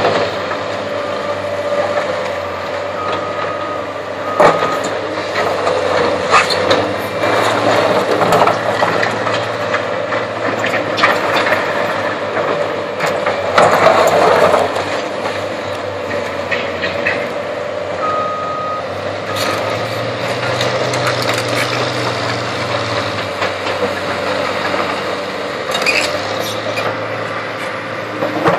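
Diesel engines of a tracked excavator and a Bobcat skid-steer loader running steadily, with rocks and rubble knocking and clattering as the excavator bucket scrapes and spreads fill. A backup alarm beeps in short spells, once early on and again around the middle.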